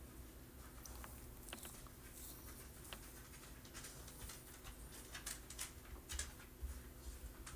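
Faint scattered small clicks and rustles from lipstick being applied and the tube being handled, over a faint steady hum.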